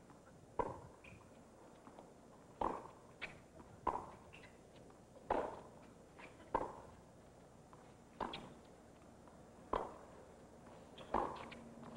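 Tennis ball pocking off the players' rackets and bouncing on a hard court during a rally: about nine sharp, hollow hits, roughly one to two seconds apart, over a faint crowd hush.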